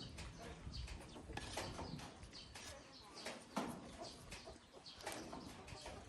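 Close-up eating sounds, irregular short clicks and smacks of chewing, over the low rumble of wind on the microphone.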